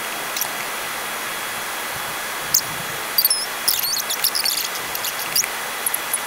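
Sped-up recording of computer mouse clicks while colouring in a drawing program: a steady hiss with rapid scattered clicks and brief high chirps, busiest from about two and a half seconds in.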